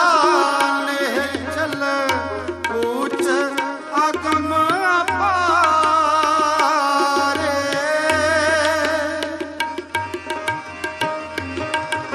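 Sikh kirtan music: a voice singing a wavering, ornamented melody over tabla. The tabla strokes grow denser near the end.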